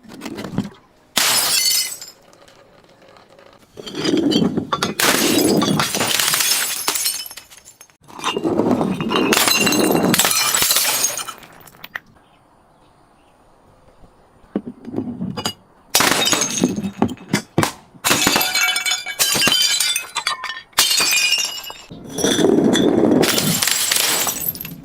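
Glass being crushed and shattering, in about six loud bouts of crackling breakage, each lasting one to three seconds.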